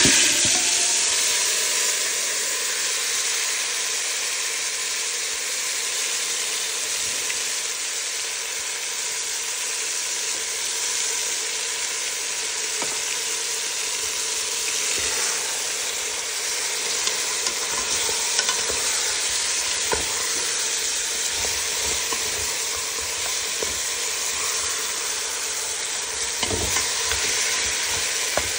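Pieces of seasoned cow foot dropped into hot oil in a metal pot: a loud sizzle at once, settling into a steady frying hiss, with a few knocks of a stirring utensil against the pot.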